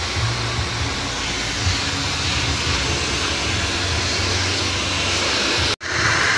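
Handheld hair dryer blowing steadily during a blow-dry, a loud even rush of air with an uneven low rumble. Near the end it cuts out for an instant and comes back louder and brighter.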